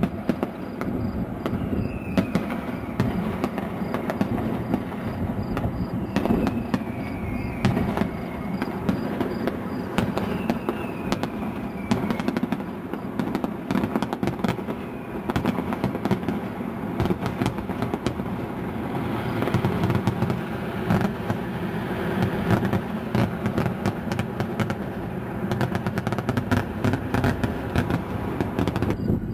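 Fireworks display: a continuous barrage of aerial shells bursting, with many sharp bangs and crackling, and a few short falling whistles in the first half.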